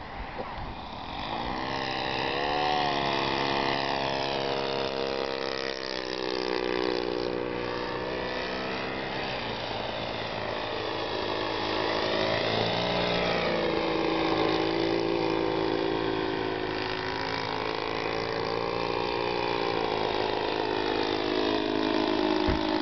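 ASP FS-80AR four-stroke glow engine (13 cc) of a Slow Poke radio-controlled model airplane running in flight. Its pitch slides up and down several times as the plane manoeuvres, and it grows louder a second or two in.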